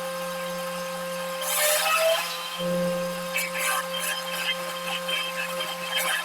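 Wood shaper planer machine running with a steady motor hum, cutting into wood about a second and a half in, with a brief rising tone as it bites; lighter cutting noise follows a couple of seconds later.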